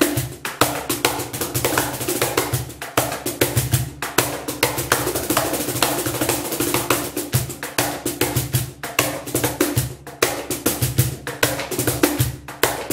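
DG Yaquì cajon, fitted with snare-drum wires, played by hand in a fast, dense improvised solo. Sharp slaps at the top edge of the front plate are mixed with deep bass strokes.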